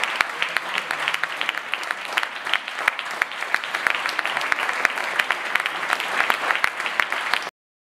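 Audience applauding: many hands clapping in a dense, steady patter that cuts off suddenly near the end.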